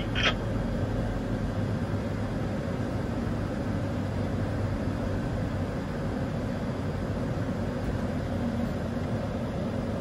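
New Holland combine running steadily as it drives along, heard from inside the cab as an even machine hum with a low drone.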